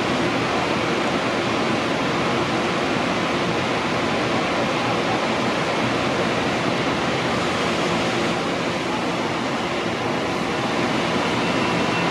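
Steady, even rushing noise of ventilation on an underground station platform beside a stationary electric commuter train, with no passing train. A faint high tone comes in near the end.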